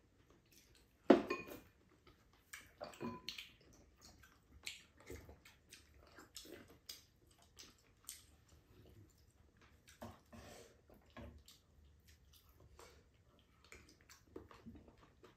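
Table eating sounds: spoons clinking against ceramic bowls and the pan, the sharpest clink about a second in, with slurping of soup and chewing between.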